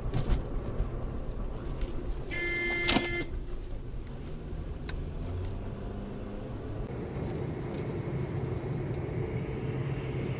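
Car driving, heard from inside the cabin: steady road and engine noise, with one short horn blast about two and a half seconds in.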